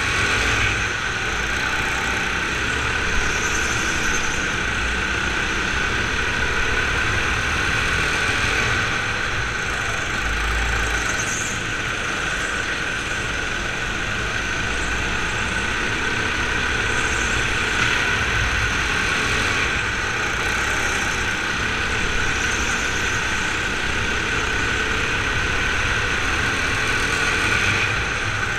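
Racing go-kart running at speed through the corners of an indoor track, heard from the kart: a steady, continuous drive noise with no sharp changes.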